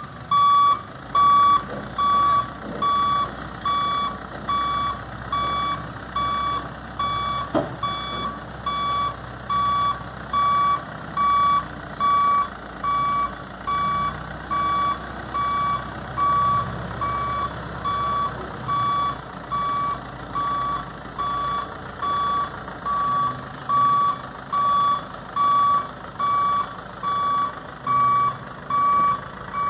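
Escorts mobile crane's warning beeper sounding in a steady, even rhythm, about one and a half beeps a second, over the crane's diesel engine running. There is a single short knock about seven and a half seconds in.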